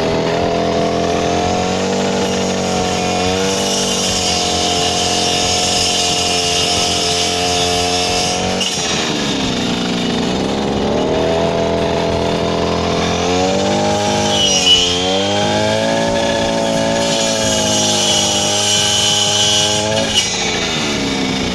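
Huter GGT-1500T two-stroke petrol brush cutter running at high revs with a 40-tooth carbide-tipped saw disc, sawing through branches. The engine note sags several times as the blade bites into the wood, then climbs back. There are a couple of brief knocks in the second half.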